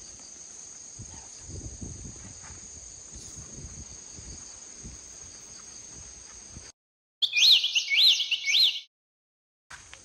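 A steady high insect trilling with soft, irregular thumps beneath it cuts off abruptly about two-thirds of the way in. After a moment of dead silence, a loud inserted sound effect of three or four quick rising chirpy whistles plays and ends just as abruptly.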